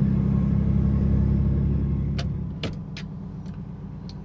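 Diesel semi-truck engine and road rumble heard from inside the cab while driving. About two and a half seconds in it drops to a quieter steady hum, with a few sharp clicks.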